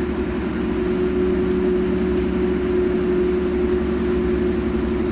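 Harbour passenger ferry's engines and propellers running under power, a loud, steady droning hum, with the wash churning the water beside the hull.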